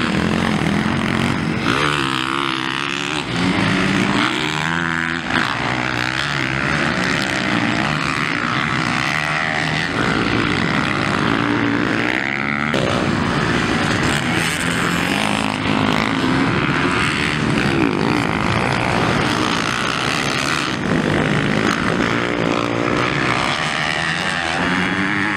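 Several motocross dirt bikes racing, their engines revving up and dropping away again and again, overlapping one another.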